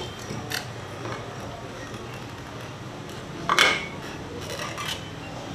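Close-miked chewing of fresh spring rolls, a person's wet mouth noises with a few short smacks, the loudest about three and a half seconds in.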